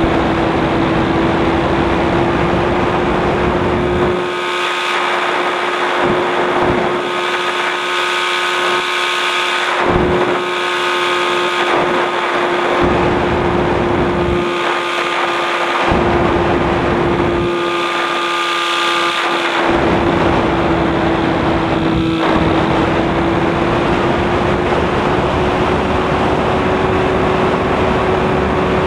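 Light aircraft's engine and propeller running at a steady cruise note in flight, the pitch sagging slightly about two-thirds of the way through and recovering. Wind rushes over the microphone, the low rumble coming and going in gusts.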